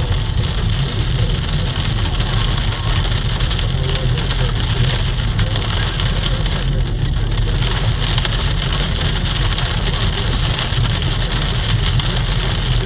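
Steady cabin noise of a car driving on a snow- and slush-covered road: a low road and engine rumble under a continuous wet hiss from the tyres and falling snow.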